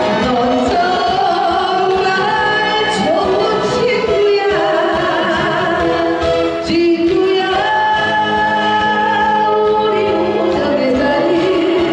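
A singer singing a Korean trot song over a recorded backing track, holding long notes with slides between them.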